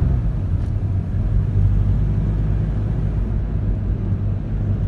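Steady low engine hum and road noise of a car driving, heard from inside its cabin.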